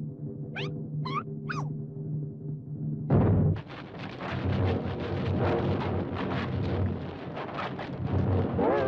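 Cartoon soundtrack. A held low orchestral chord runs under three short, squeaky cartoon-critter chirps. About three seconds in, a sudden loud orchestral hit breaks into busy, fast-moving cartoon score full of sharp accents.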